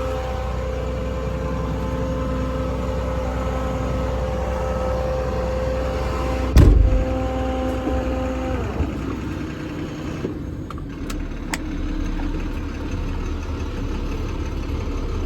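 Diesel truck engine running steadily at idle, with a steady whine over it that winds down and stops about halfway through. A single heavy thump comes a little before the whine stops, and a few sharp clicks follow later.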